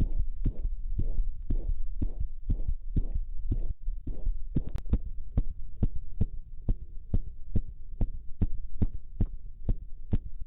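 Rapid heartbeat of a dog with myxomatous mitral valve disease, heard through a digital stethoscope as a steady train of soft thumps over a low rumble. About five seconds in, a click marks the change from a stage B1 recording to a stage B2 recording, whose beats are sharper.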